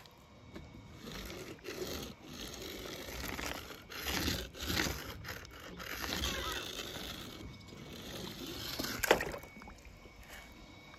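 Plastic toy monster truck's wheels rolling and scraping through wet paint across paper, in several strokes, with a sharp knock about nine seconds in.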